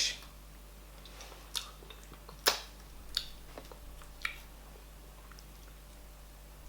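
Faint eating and food-handling sounds: four or five short, scattered clicks and smacks, the sharpest about two and a half seconds in.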